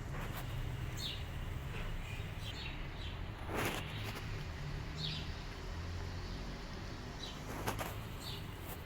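Cats and kittens eating and lapping up soup: small wet licking and smacking sounds every second or so, with two louder clicks over a low background rumble.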